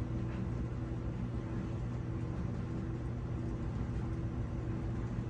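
Clothes dryer running with a steady, even hum from its motor and turning drum, its vent freshly cleared of clogging lint.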